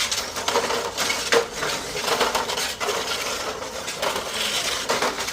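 Small remote-controlled robots bumping and shoving against each other in a pushing match, with irregular clattering knocks.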